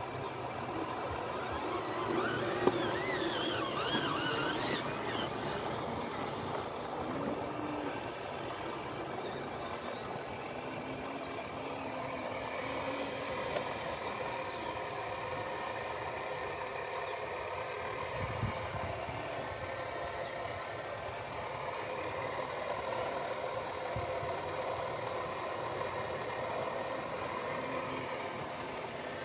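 Radio-controlled model Cat 336D excavator and dump truck running as the excavator digs: a steady motor whine with several tones, wavering in pitch during the first few seconds, with a sharp click about two and a half seconds in.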